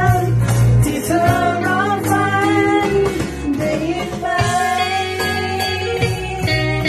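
A small band playing a song: a voice singing held notes over guitars and a steady bass line.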